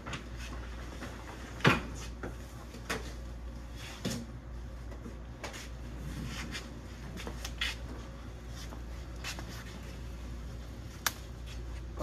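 Scattered knocks, clicks and rustling as a refrigerator wrapped in moving blankets is handled on an appliance dolly. The loudest thump comes about two seconds in, and there is a sharp click near the end.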